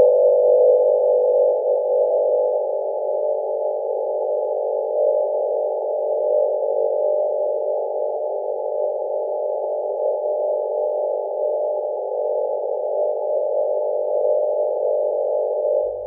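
NASA's recording from Mars of the MOXIE oxygen-making instrument aboard the Perseverance rover: its air compressor running with a steady hum of several close pitches.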